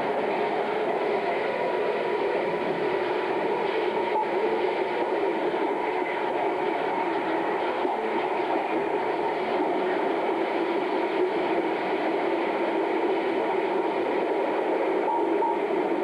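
Steady, dense din of sawmill log-handling machinery running: log conveyors and the Cambio 26-inch debarker, a clattering rumble that holds an even level throughout.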